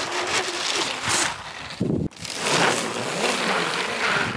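Brushless electric motors of an RC tracked snowcat whining as its tracks churn through deep powder snow, with wind on the microphone. The sound breaks off sharply about two seconds in, then picks up again.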